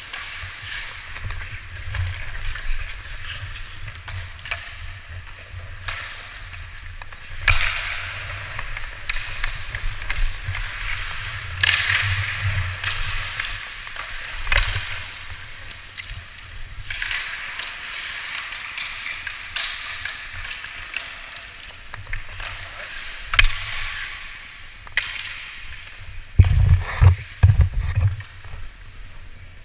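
Ice hockey skates scraping and carving on the ice during play, with a few sharp clacks of stick and puck and a steady low rumble. Several dull thumps come near the end.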